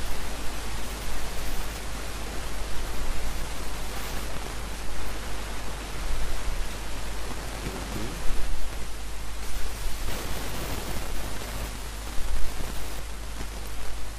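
Steady hiss with a low hum underneath, the recording's background noise.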